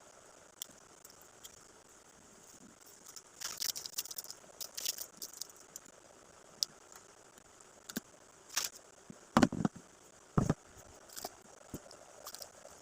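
Handling noises as objects and packaging are moved about: light clicks and crackly rustling, then two louder dull knocks a little after the middle.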